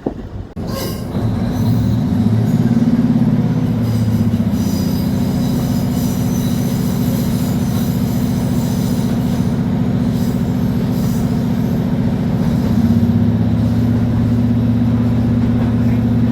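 Class 153 diesel multiple unit under way: the underfloor Cummins six-cylinder diesel engine gives a steady low drone whose note shifts a little early on and again near the end. Thin high-pitched wheel squeal rides over it from about a second in, fading out before the end.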